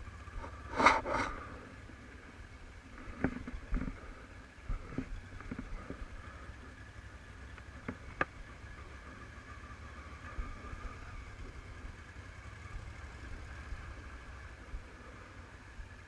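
Honda CBF500 parallel-twin motorcycle ridden at low speed, heard muffled through a helmet-mounted action camera's case: a steady low rumble with a faint engine hum above it. A loud brief burst of noise comes about a second in, and a few short knocks follow.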